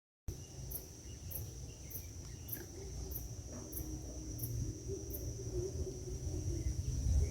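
Insects calling, cutting in a moment in: a steady high-pitched buzz with a second insect's short chirps repeating a little under twice a second, over a low rumble.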